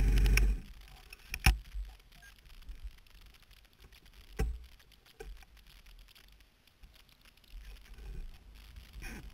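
A vehicle engine running stops abruptly about half a second in. What follows is quiet, broken by two sharp clicks of the camera being handled and a faint low traffic rumble near the end as a semi-truck approaches.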